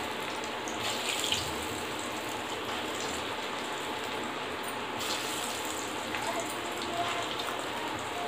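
Masoor dal and moringa-leaf pakodis deep-frying in hot oil in an iron kadhai: a steady sizzle with occasional crackles from the bubbling oil.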